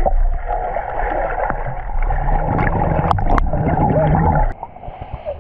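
Muffled underwater sound of children swimming in a pool, picked up by a camera below the surface: a dense rush of churning water and bubbles over a low rumble. About four and a half seconds in it drops suddenly to a much quieter hiss.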